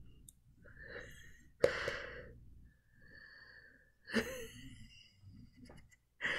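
A woman's stifled, wheezing laughter: three sharp breaths out through the nose and mouth, about two and a half seconds apart, with softer breathing between.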